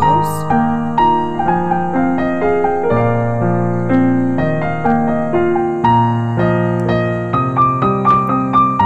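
Background piano music, a melody of single struck notes over held chords, a new note about every half second.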